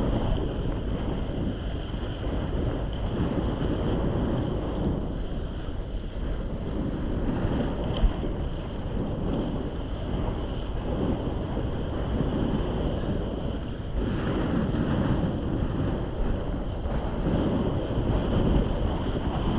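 Wind buffeting the microphone over the rush and slap of water under a windsurf board on the move. A single sharp knock comes about eight seconds in.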